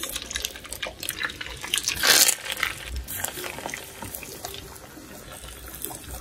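Fenugreek seeds and small onions frying in hot coconut oil, a continuous sizzle full of small crackles, with a louder hiss swelling about two seconds in.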